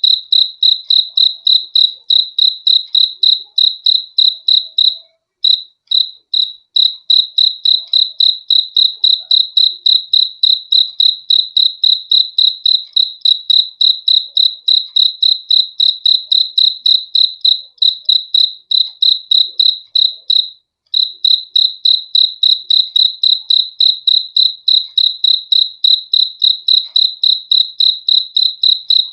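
Cricket chirping in a fast, even rhythm of high, single-pitched chirps, about four a second, pausing briefly twice.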